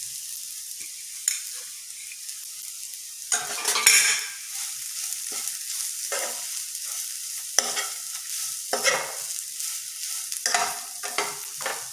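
Spatula stirring and scraping through a pan of fried ridge gourd peel and grated coconut, in several strokes, over a steady light sizzle from the still-hot pan just after the stove is turned off.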